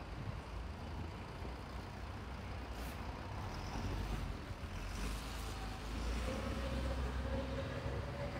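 City street noise with the low, steady rumble of a large road vehicle's engine, growing louder in the second half.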